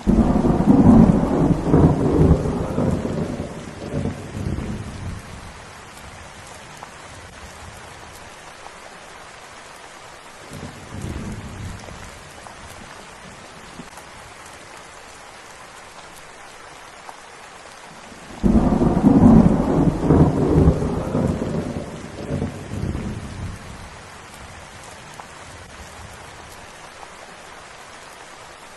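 Steady rain hissing, with a rumble of thunder that breaks in suddenly and dies away over about five seconds, a fainter rumble about ten seconds in, and another loud rumble about eighteen seconds in.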